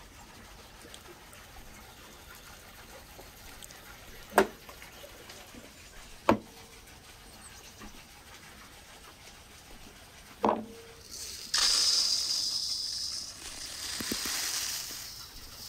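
A few sharp knocks as things are set down on a wooden worktable, then dry rice grains pouring into an enamel bowl with a loud hiss, in two pours near the end.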